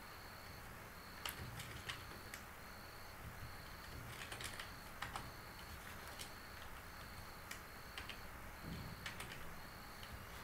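Computer keyboard being typed on: irregular, scattered keystrokes, a few at a time with pauses between.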